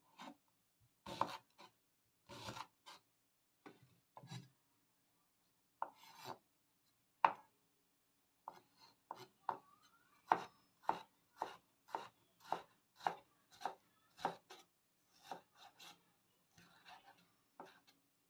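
Cleaver chopping fresh ginger on a wooden cutting board: a few scattered cuts at first, then from about halfway in a steady run of about two chops a second as the slices are cut into strips.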